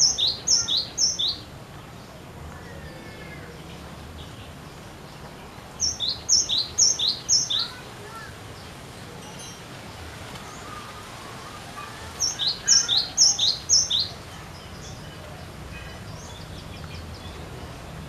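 Cinereous tit (glatik batu) singing: three phrases about six seconds apart, each a quick run of four or five two-note whistles, a high note then a lower one.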